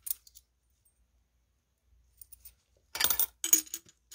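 Korean 500-won cupronickel coins clinking against one another as they are handled and set down. A few light clinks come at the start, then it goes nearly quiet, and a quick cluster of clinks follows about three seconds in.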